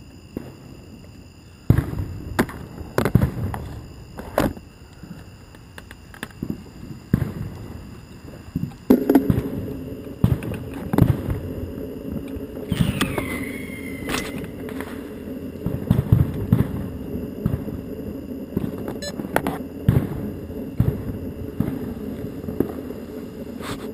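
Small fireworks fixed to a quadcopter drone's arms pop and crackle irregularly. About nine seconds in, the drone's motors start and run with a steady hum under the pops, and a short whistle falls in pitch a few seconds later.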